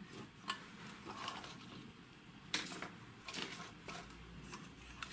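Light handling noises: a few sharp clicks and soft rustling from hands on the equipment, the loudest clicks about half a second and two and a half seconds in.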